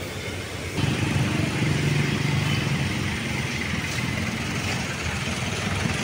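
Street traffic: motor vehicle engines running close by, with a low steady hum that gets louder about a second in.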